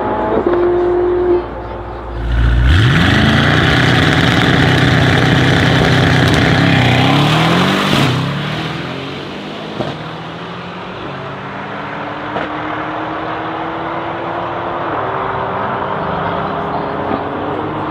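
Brabus 800 E63 S's twin-turbo 4.0 L V8 and a Mercedes-AMG A45 revving hard and launching off the drag-strip start line. They accelerate away with the engine note climbing and dropping back through several upshifts, fading into the distance.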